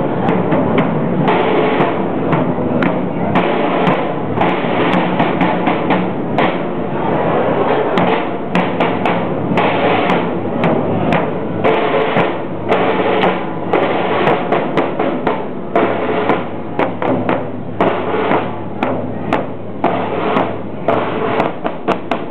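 Renaissance-style parade drums of a Florentine flag-bearer corps playing a marching cadence: rapid sharp strokes and rolls.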